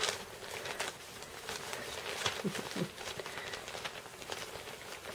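Miniature schnauzer puppies play-biting and tussling on newspaper and a blanket: light rustling of paper with scattered small clicks, and two short low puppy grunts about two and a half seconds in.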